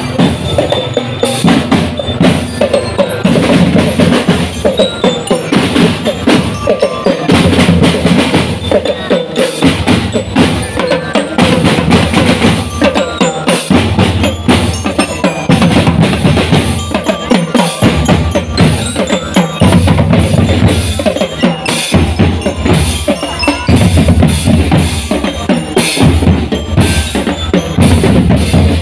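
Marching drum band playing a steady, loud beat on snare, tenor and bass drums.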